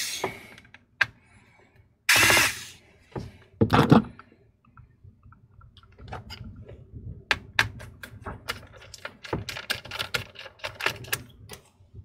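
Small Phillips screwdriver backing out the screws that hold a laptop battery, making a quick run of small metallic clicks and taps in the second half. Before that come two short, loud noisy sounds in the first four seconds.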